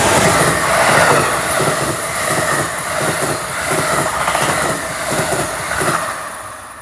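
Passenger train passing close at speed, with a rhythmic clickety-clack of wheels over the rail joints. It is loudest in the first second or so and fades away near the end.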